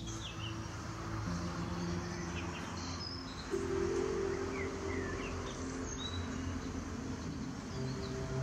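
Soft ambient music of long held notes whose chord changes a few times, with small birds chirping over it in short high calls.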